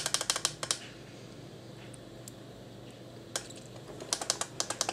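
Push-buttons on a FrSky Taranis Plus radio transmitter clicking in quick runs of presses as a setting is scrolled through: a rapid run at the start, a lull, then a single click and another rapid run near the end.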